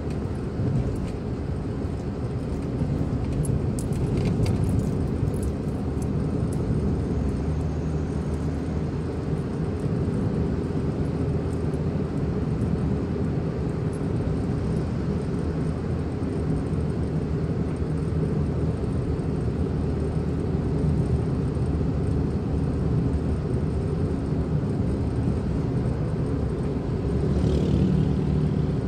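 Steady engine and road noise inside a moving car's cabin, a low rumble that holds level throughout, swelling briefly near the end.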